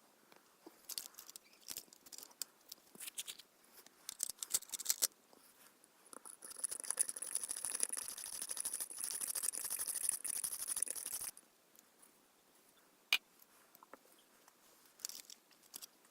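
Small scratching and rubbing sounds, scattered at first, then a continuous scratching for about five seconds that stops abruptly, followed by one sharp click.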